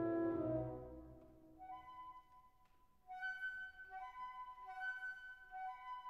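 Instrumental background music: a held low chord dies away in the first second or so, then a quieter melody of long, steady notes comes in and grows a little louder about three seconds in.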